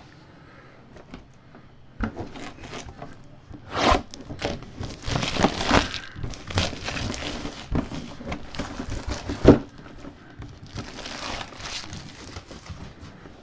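Plastic shrink wrap being torn and crinkled off a cardboard box in irregular rustling bursts, starting about two seconds in. One sharp knock, the loudest sound, comes about two-thirds of the way through, as the box is handled.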